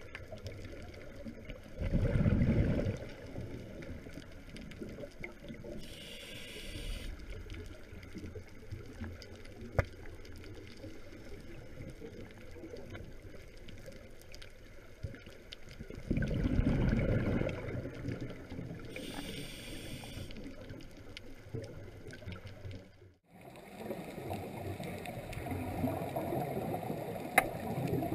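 Underwater scuba breathing: exhaled bubbles from a diver's regulator gurgle twice, each about a second long and some fourteen seconds apart, over a steady low underwater rush, with short hissing in between. Near the end the sound cuts out briefly and returns as a steadier rush with a few sharp clicks.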